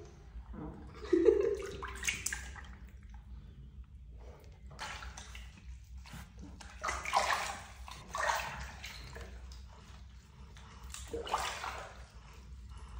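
Water sloshing and splashing in a plastic washtub as hands scoop and rub water over a wet cat, coming in several irregular bursts, the loudest about a second in.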